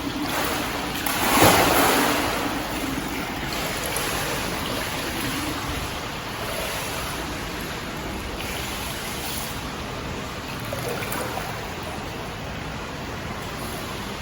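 Swimming-pool water: a splash about a second and a half in, then a steady rushing wash of water as the swimmer glides from a push-off at the wall.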